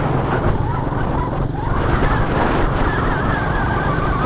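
Honda Astrea Star four-stroke underbone motorcycle running while riding along a street, with wind rumbling on the microphone. A thin wavering whine sits over it in the second half.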